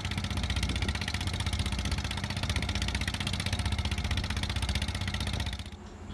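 Motorboat running at speed over choppy sea: a steady engine drone mixed with rushing wind and water. It cuts off suddenly near the end.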